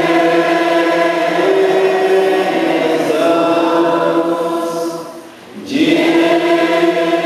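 Voices singing a slow chant in long, held notes, with a short break about five seconds in before the singing resumes.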